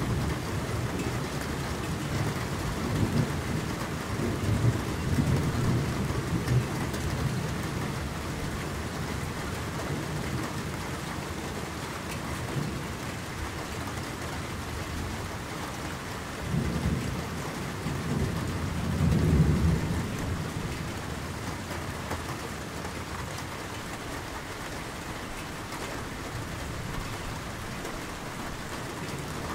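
Steady rain falling on a lake's surface, with low rolling thunder rumbling through the first several seconds and again twice a little past the middle, the second roll the louder.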